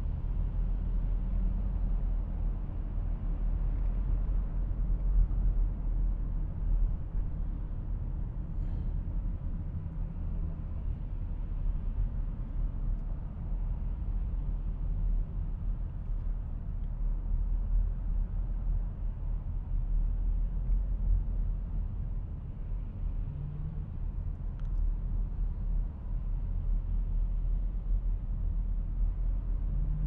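Steady low road rumble heard inside a car's cabin while it drives at expressway speed.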